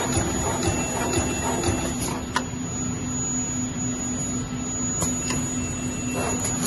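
Plas Alliance 32BKC-V glove making machine running in production: a steady mechanical hum with scattered sharp clicks.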